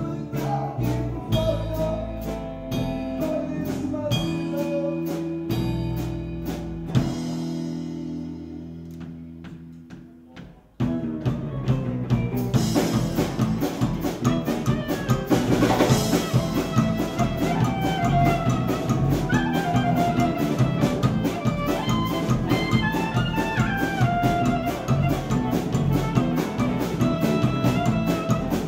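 Live Americana band, with clarinet, electric bass, acoustic and electric guitars and drum kit, heard from the clarinet's spot on stage, so the drums are loud. Held bass and guitar chords die away almost to nothing about ten seconds in, then the whole band comes back in at once with driving drums and a clarinet melody on top.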